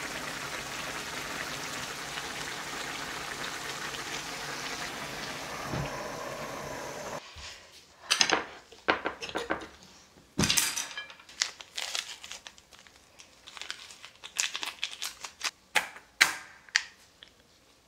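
Spicy ramen jjamppong broth bubbling at a steady boil in a pan. About seven seconds in it cuts off and gives way to scattered clinks and knocks of cookware being handled and set down.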